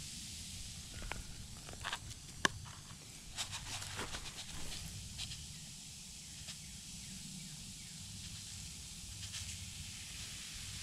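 Soft, steady fizzing hiss of a science-kit volcano's red eruption powder foaming up after water is poured in, with scattered light clicks.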